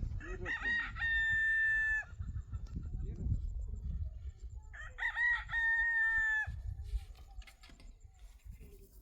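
A rooster crowing twice, each crow about one and a half seconds long and ending in a long held note, over a low rumble.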